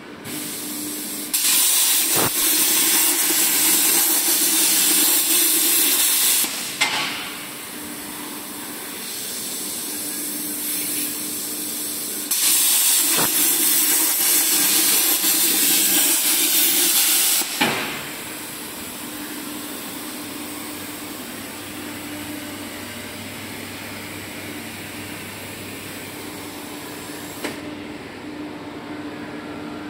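Hypertherm MAXPRO200 plasma torch on a CNC cutting table cutting metal plate: two loud, steady hissing cuts of about five seconds each, each ending in a short pop, with a softer hiss between them. From about 18 seconds on, only a quieter steady machine hum remains.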